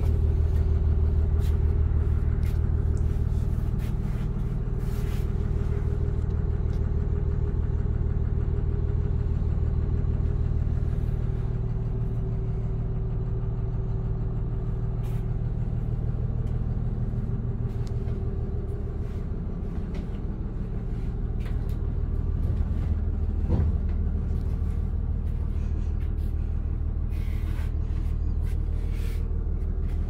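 Six-cylinder diesel engine of a 1991 Blue Bird TC2000 school bus idling steadily, heard from inside the bus, with a few faint light knocks.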